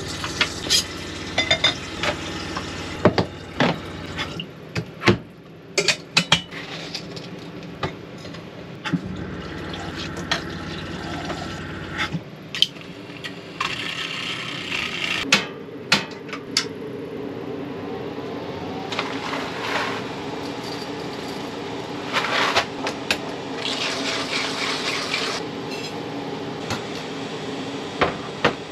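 Kitchen tap running water into a stainless-steel kettle, then clinks and knocks of metal cups and utensils on a counter as coffee is made.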